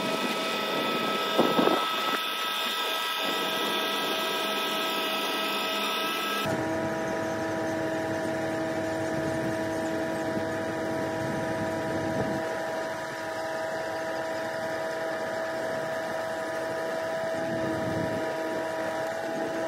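Truck-mounted crane running steadily while it holds a yacht aloft, a steady engine hum carrying a high whining tone. There is a brief knock about a second and a half in. About six seconds in the sound changes abruptly and a lower rumble joins.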